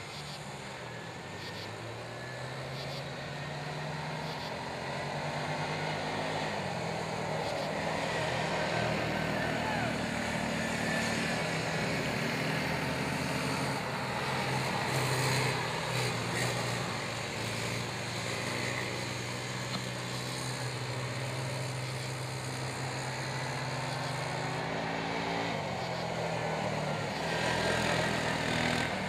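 Several youth ATV engines running as the quads circle a dirt oval, their notes rising and falling as they go round.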